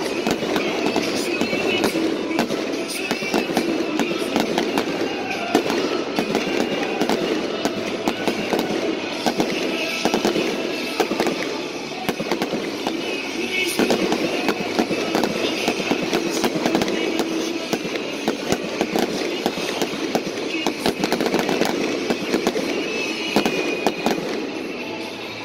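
Aerial fireworks going off continuously: a dense, rapid crackling and popping of bursting shells and crackling stars, with music and voices underneath.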